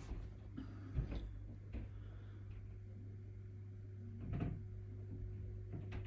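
Scattered indoor knocks and clicks over a steady low hum: a sharp knock about a second in, a few lighter clicks, and a cluster of knocks a little past the middle.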